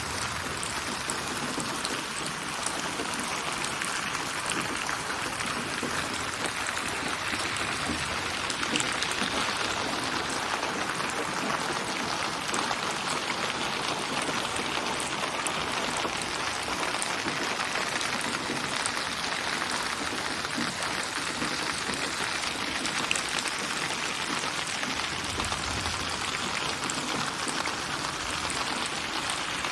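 Steady rain: a dense, even patter of many raindrops. It is a synthetic rain ambience built from many recorded rain samples.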